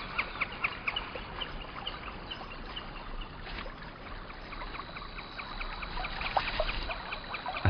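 Water trickling and splashing around a beaver grooming its wet fur in shallow water. A bird's quick repeated chirps, about five a second, sound over it for the first couple of seconds and then fade.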